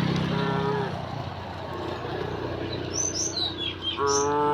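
Cattle mooing: a short moo about half a second in and a louder, longer one about four seconds in, with a few quick bird chirps between them. A vehicle engine's low hum fades away in the first second.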